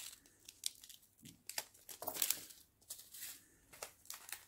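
Small plastic bags of diamond painting drills crinkling and rustling as they are handled, in faint, irregular short crackles.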